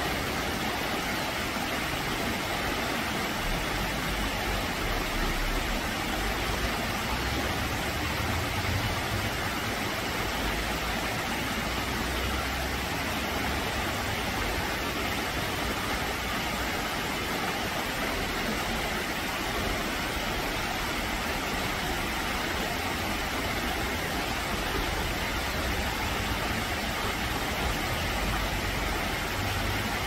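Stream water rushing over rocks and small cascades, a steady even rush with a low rumble that swells and fades.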